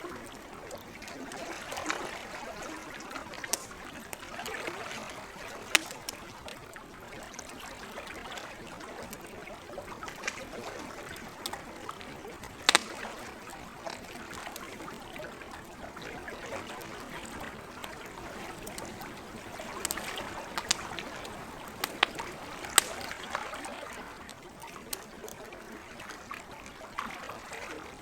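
Campfire crackling, with sharp pops scattered irregularly through it, the loudest about 13 s in and a cluster around 20 to 23 s in. Beneath it, lake water laps gently and steadily.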